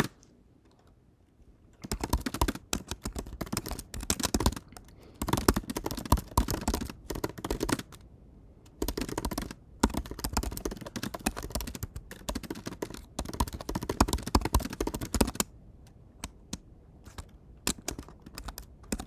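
Typing on a computer keyboard: quick runs of keystrokes broken by short pauses, thinning to a few scattered keystrokes near the end.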